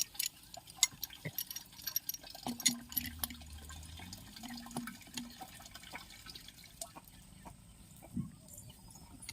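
Scattered light clicks and drips, many in the first half and fewer later, as a ball valve is handled and taken apart.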